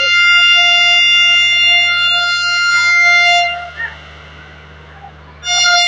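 Train horn sounding one long, steady single-tone blast that cuts off about three and a half seconds in, then a second short blast near the end.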